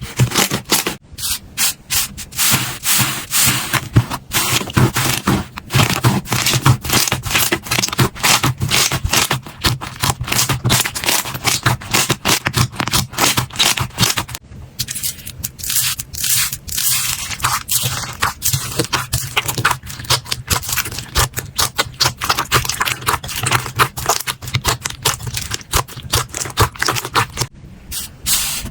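Hands pressing, stretching and squishing slime close to the microphone: a dense, fast run of small crackles, pops and squelches.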